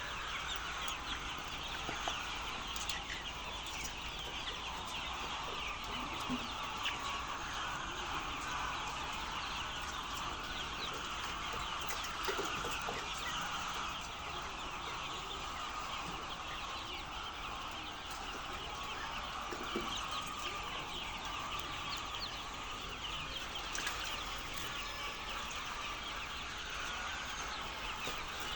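Many chickens clucking and calling together in a continuous, dense chatter, as from a crowded flock in a poultry house.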